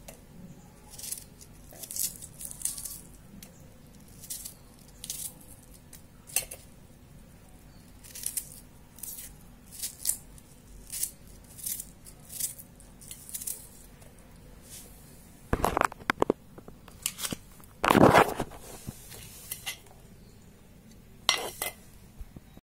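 A knife scraping and nicking the papery skin off garlic cloves in short, sharp strokes, roughly one a second. Several louder knocks come in the last third.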